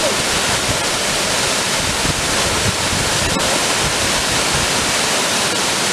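Steady rush of a waterfall pouring into a rocky plunge pool, with splashing as a person swims and wades out through the shallow water.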